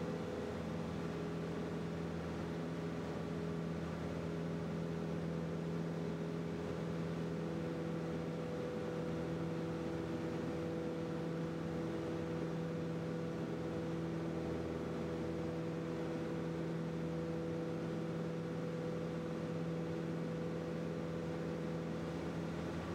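Light propeller airplane's piston engine and propeller droning steadily in cruise-climb, heard inside the cabin as an even hum with a few fixed tones over a rushing noise. A couple of the tones shift slightly in pitch about seven seconds in.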